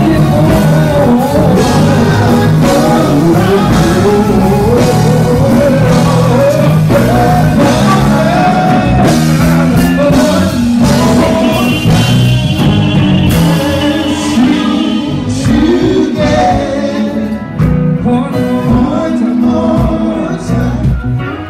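Male gospel vocal group singing live into microphones, lead and harmony voices over instrumental backing with a steady bass line.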